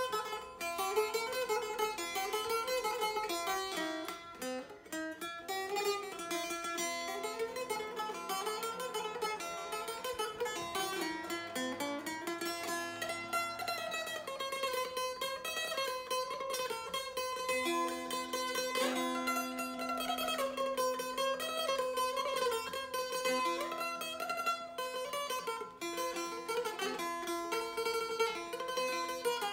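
A prim, a small Kosovo-Albanian tamburica-type lute, played solo: a continuous melody of fast-plucked notes.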